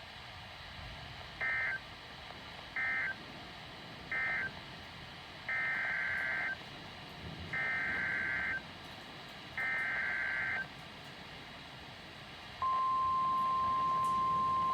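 Emergency Alert System data bursts on NOAA Weather Radio: three short end-of-message bursts, then three longer header bursts for the next warning, each a harsh rapid warble. About twelve seconds in, the steady single-pitched 1050 Hz weather radio warning alarm tone begins.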